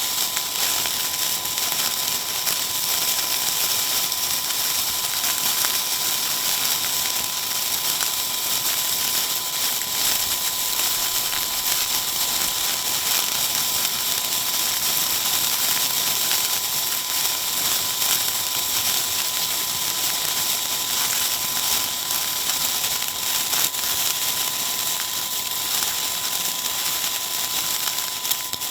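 Handheld spray firework burning: a steady rushing hiss of sparks shot out in a stream, thick with fine crackles. A steady beep tone runs through it, marking the recording as a sample.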